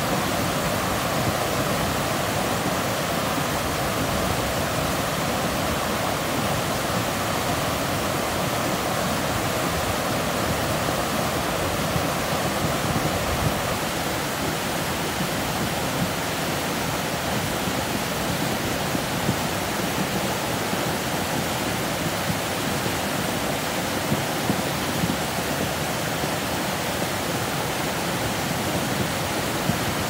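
Swollen, muddy river in flood churning over rocks: a steady rush of turbulent water.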